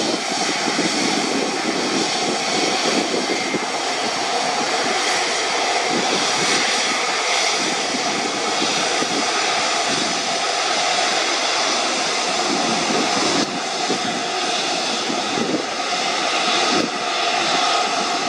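Virgin Atlantic Airbus A330-300's Rolls-Royce Trent 700 turbofans running at low taxi thrust as the airliner taxis on the runway. The sound is a steady jet whine and rush.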